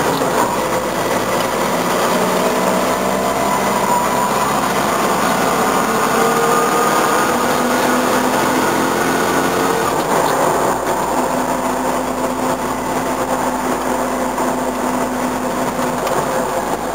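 Toyota BJ40 Land Cruiser's diesel engine heard from inside the cab while driving, its pitch climbing and falling with the revs, then holding steady for the last few seconds, over road and cab rattle noise.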